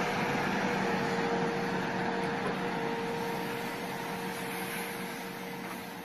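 Rail track-laying machine running steadily, its engine and machinery giving an even hum with a steady tone through it, easing off slightly near the end.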